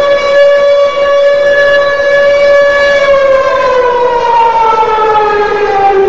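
Hockey arena goal horn sounding one long, loud, steady note, then sliding down in pitch over its last few seconds.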